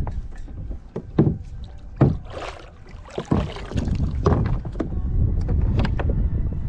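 Scattered knocks and clicks of gear being handled aboard a kayak, with wind rumbling on the microphone that becomes steadier and louder in the second half.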